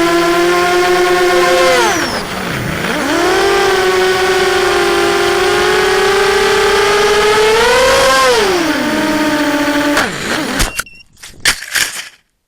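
FPV quadcopter's electric motors and propellers whining in flight, the pitch dipping sharply about two seconds in and rising then falling again near eight seconds as the throttle changes. About ten seconds in the whine cuts off, and a few sharp knocks follow.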